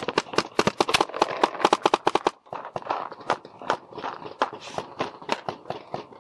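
Paintball markers firing: a rapid string of sharp pops, about eight a second for the first two seconds, then scattered single shots and pairs.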